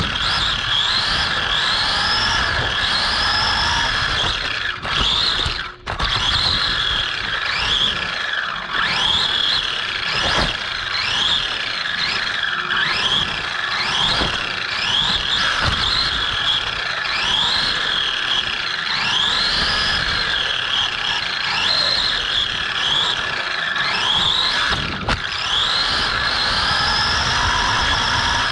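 Redcat Cyclone XB10 electric RC buggy running at speed: its motor and gears whine, the pitch gliding up again and again as it accelerates, over a steady whine and the rush of tyres.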